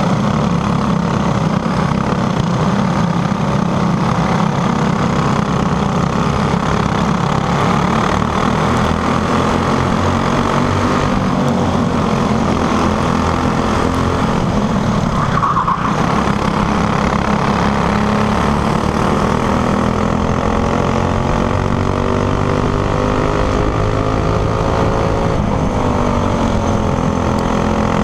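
Racing go-kart engine heard from the kart itself, running hard and revving up and down through the corners, with rushing wind and road noise over it. Its pitch drops briefly about halfway through and later rises and falls in long sweeps.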